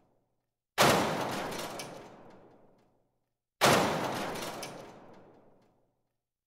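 Two heavy impact hits used as a transition sound effect, about three seconds apart. Each strikes suddenly and dies away over about two seconds in a long echoing tail.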